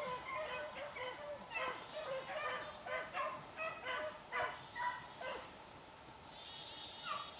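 A pack of beagles baying as they run a rabbit's trail: many short yelps from several dogs overlapping, dying down about five and a half seconds in.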